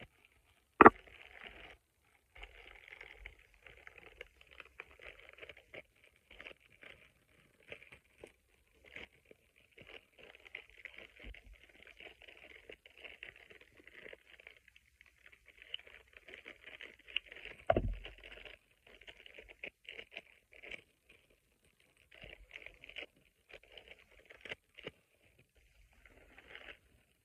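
Clear plastic packaging crinkling and rustling on and off as it is handled and cut open with scissors. A sharp click comes about a second in, and a heavier thump comes around eighteen seconds in.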